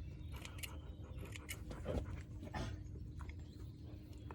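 Scissors snipping through a dog's long coat: a few faint, irregular clicks.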